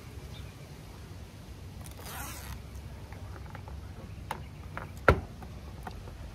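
The liner of the double-sided adhesive tape on a plastic front lip spoiler piece is peeled off with a short rasp about two seconds in. A few sharp clicks and one louder knock follow near the end as the plastic lip piece is handled and pressed up against the bumper.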